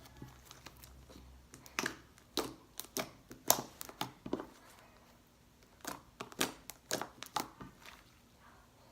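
Homemade white-glue slime being squeezed and kneaded by hand, giving an irregular string of sharp sticky clicks and pops, with a short lull about halfway through.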